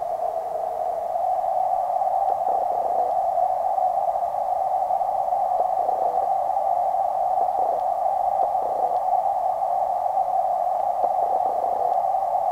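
Steady muffled underwater noise picked up by a waterproof camera submerged in a creek: an even hiss that does not change, with no distinct knocks or calls.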